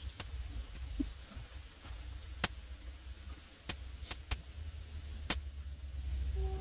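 Prawns cooking in a wok: about seven sharp, scattered clicks and knocks over a steady low rumble.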